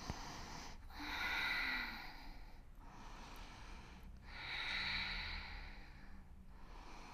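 A woman's slow, deep breathing held in a yoga pose: two long audible breaths, a few seconds apart, over faint room hum.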